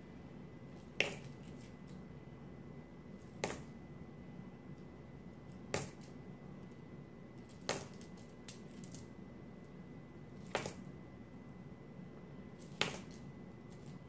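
Nickels clicking down one at a time as coins from a roll are handled, six sharp clicks two to three seconds apart.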